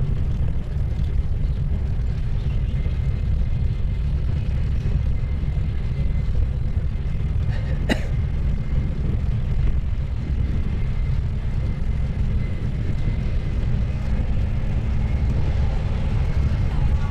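Steady low rumble of wind buffeting the microphone and bicycle tyres rolling over a paver-block path while riding, with one sharp click about eight seconds in.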